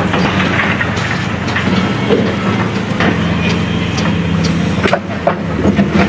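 Hydraulic excavator's diesel engine running steadily at demolition work, with scattered metallic clanks and knocks of the machine and debris several times through.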